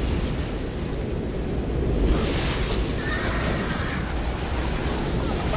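Film sound effects of a cavalry charge: a steady low rumble of horses, a sudden rush of noise about two seconds in, and a horse whinnying.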